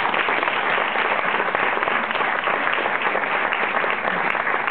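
Cinema audience applauding: many hands clapping together in a steady, dense patter.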